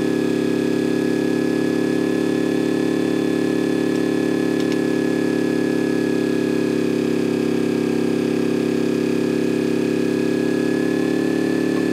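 Wheel loader's diesel engine idling steadily, an even, unchanging hum.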